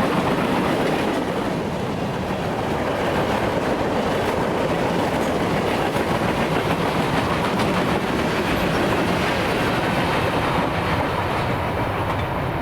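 BNSF manifest freight train rolling past, a steady rumble and clatter of steel wheels on the rails.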